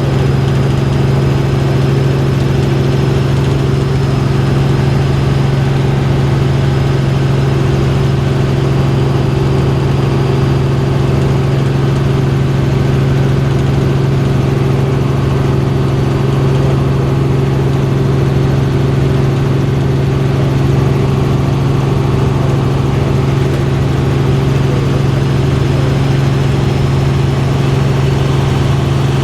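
Helicopter engine and rotors running in a steady loud drone: a strong deep hum with several steady higher tones over it, unchanging throughout.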